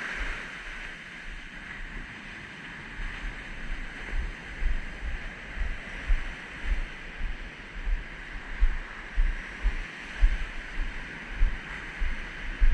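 Surf washing onto a sandy beach with wind on the microphone. From about four seconds in there is a steady run of low thumps, about two a second.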